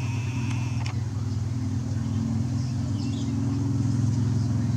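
Nikon P900 lens zoom motor running, with a high whine that stops with a click about a second in, over a steady low rumble that carries on. The noise is what the owner takes for a zoom fault.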